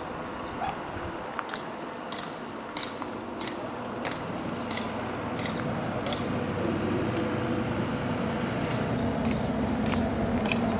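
Footsteps of the person filming, a short crisp step about every two-thirds of a second while walking along a village path. A low rumble grows steadily louder through the second half.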